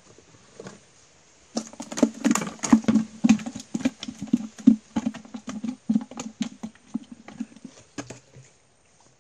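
A freshly caught silver barb (mè vinh) flapping hard, slapping and knocking in fast, irregular beats for several seconds. It starts about a second and a half in.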